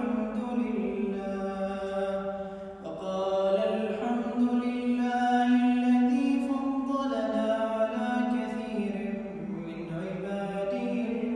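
A man reciting the Quran in the melodic chanted style (tajweed), drawing out long, ornamented notes that glide up and down. He pauses briefly for breath about three seconds in and again near the end.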